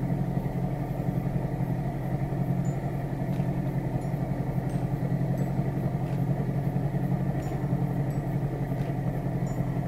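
Boat's outboard motor running steadily at low speed, a constant low engine drone with a fast pulse.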